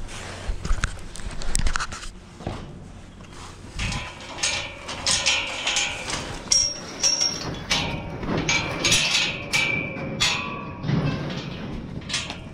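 Steel pipe gates and chute panels in a cattle pen clanking and rattling as they are handled. A few knocks come first, then about four seconds in a fast run of metallic clanks begins, some ringing briefly, and eases off near the end.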